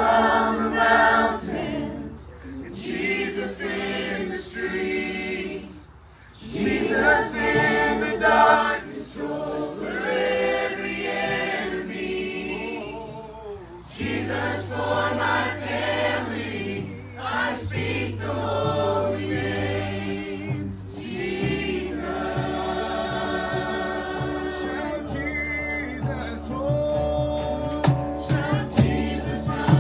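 A group of voices singing a worship song together, backed by a live band with guitars. A low bass part comes in about halfway through.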